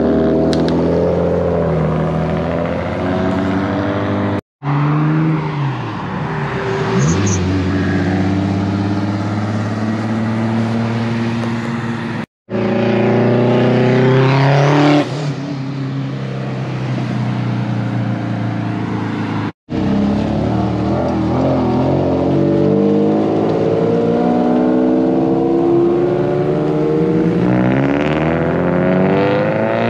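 Modified cars accelerating and driving past one after another, their engine and exhaust notes rising with revs and dropping in pitch as each goes by. The sound breaks off abruptly three times between clips.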